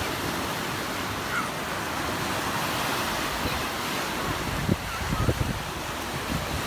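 Sea surf washing onto the shore in a steady rush, with a few short low thumps about five seconds in.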